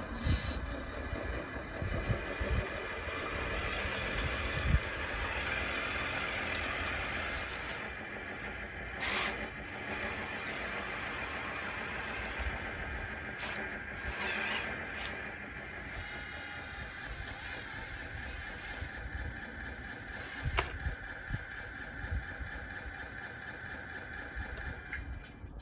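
Dxr2 RC bulldozer on wide tracks driving: its electric track motors and gearboxes whine steadily, with the tracks clattering and a few sharp knocks along the way.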